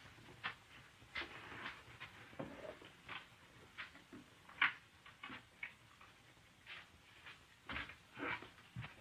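Scattered faint clicks and soft knocks at an irregular pace, a few with a dull thud beneath them, the loudest near the middle.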